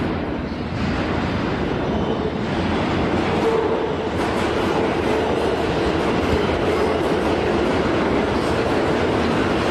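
New York City subway F train heard from inside a car while running along the track: a steady rumble and rolling noise with a constant mid-pitched hum and faint wheel clicks.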